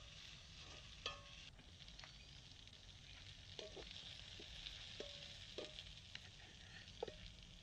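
Faint sizzling of onions, garlic, curry leaves and peppers frying in coconut oil in a stainless steel pot, with a few light taps and scrapes of the ladle stirring them.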